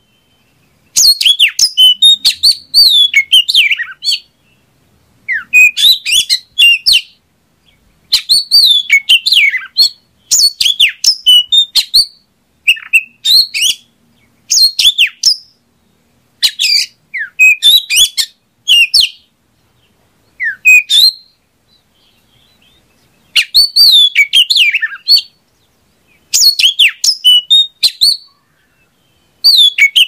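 Oriental magpie-robin (kacer) singing: short phrases of quick, varied notes that sweep up and down, each phrase a second or two long, with brief pauses between phrases.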